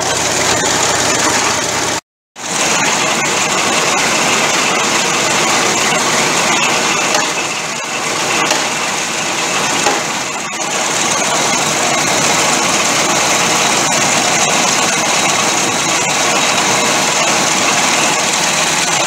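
Piling rig's winch machine engine running steadily, a loud even mechanical noise, with a brief break in the sound about two seconds in.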